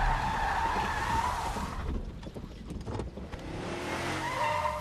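Car tyres screeching as vehicles skid on a wet street, then a quieter moment with a few short knocks, and a second screech rising near the end.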